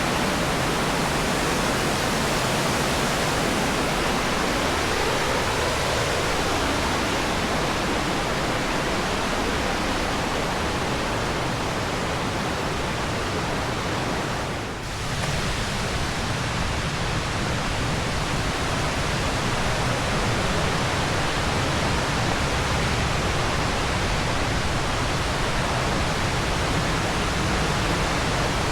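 Ludlow Falls waterfall running loud with a steady rush of water, swollen by a couple of days of rain. The level dips briefly about halfway through.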